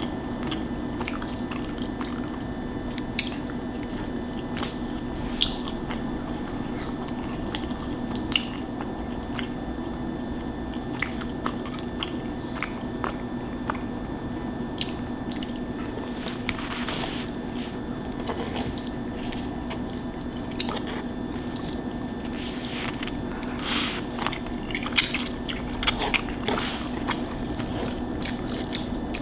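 A person eating close to the microphone: scattered sharp mouth clicks, with chewing and biting, over a steady low hum. Near the end come a few longer, louder bursts of eating noise.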